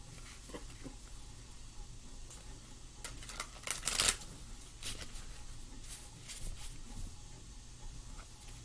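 A deck of oracle cards being shuffled by hand, giving scattered brief rustles and snaps of card against card, with the loudest flurry about four seconds in.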